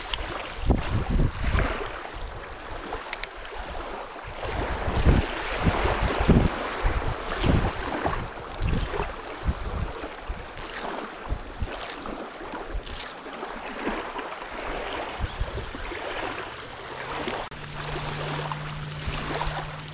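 Wind buffeting the microphone in gusts over small waves lapping at the shore, with a few faint clicks. A low steady hum comes in near the end.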